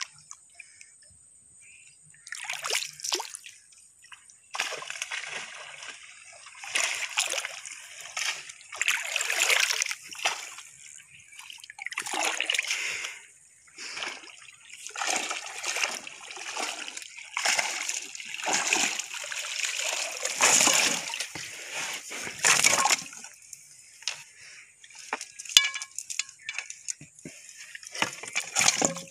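Shallow pond water splashing and sloshing in repeated surges, about one every second or two, as a person wades through it and drags a fishing net.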